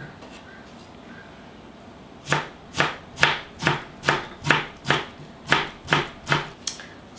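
Kitchen knife slicing cabbage kimchi into thin strips on a wooden cutting board: after a couple of seconds of quiet, about a dozen sharp knocks of the blade on the board, roughly three a second.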